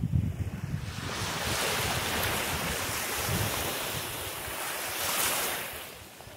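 Small waves washing up onto a sandy beach: the hiss of surf swells about a second in and fades near the end. Wind buffets the microphone underneath it.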